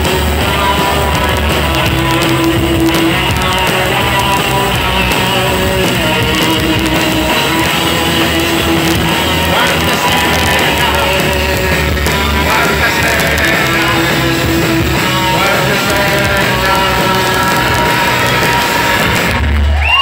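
A rock band playing loudly live: electric guitars, bass guitar and drum kit, with a singer on the microphone.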